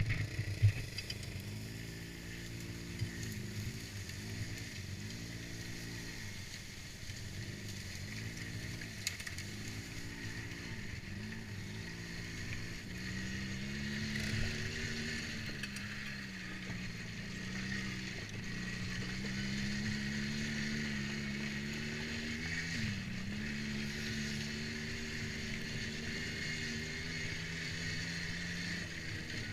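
ATV engine being ridden. For about the first twelve seconds it gives a run of short revs, each rising and falling, then it holds a steadier, higher speed with slight rises and dips.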